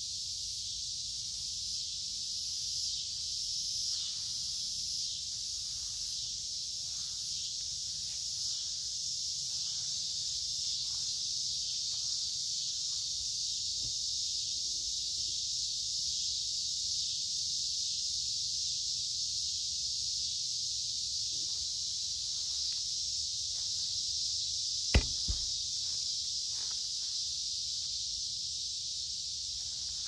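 A dense chorus of cicadas buzzing in a steady, high-pitched drone, with faint footsteps on creek-bed gravel and one sharp knock near the end.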